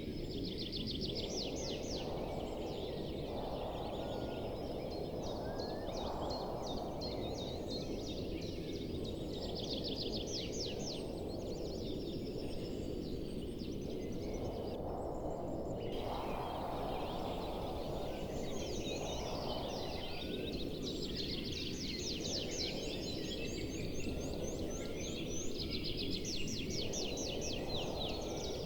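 Birds calling in quick repeated trills and chatters, over a steady low rushing noise that swells and fades every few seconds.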